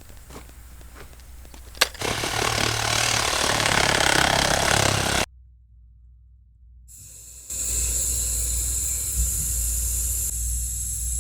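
A sharp click, then about three seconds of loud hissing as the air is let out of a sewer line held on a 5 psi air test. After a sudden cut, a Cat 305 excavator's engine runs steadily.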